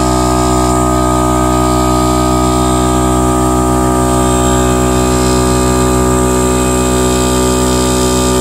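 Smittybilt portable air compressor running at a steady speed while inflating a car tyre through a coiled air hose: a loud, even, unchanging hum.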